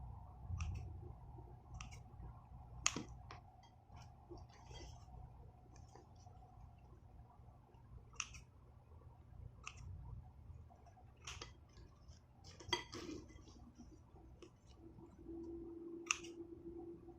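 Scissors snipping through thin lumpia wrappers: scattered quiet, short snips and clicks a second or more apart, with a faint steady hum behind.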